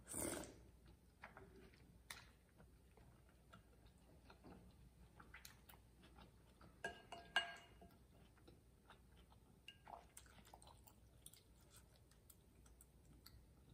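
A slurp of glass noodles right at the start, then quiet chewing of tteokbokki rice cakes and noodles with small wet clicks. About seven seconds in come two quick clinks of a spoon against the bowl, the second one ringing briefly and the loudest sound.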